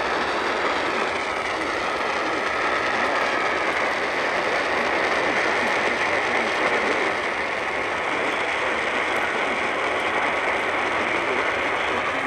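Radio static from a weakly received station: a steady crackling hiss with a faint wavering whistle, the sound of poor reception.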